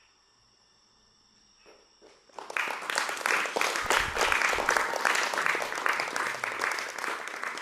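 Faint steady chirring of crickets, then an audience breaks into applause about two and a half seconds in, a loud, dense clapping that keeps going.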